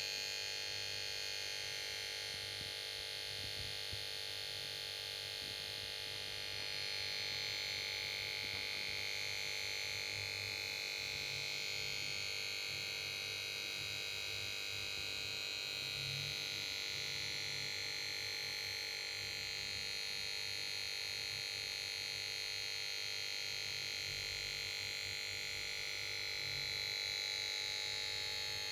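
Power board of a Samsung PS42A410C1XBT plasma TV making a steady high-pitched whining noise of several tones that drift slowly, over a low hum. The TV is failing to start, and the owner puts the noise down to the power board.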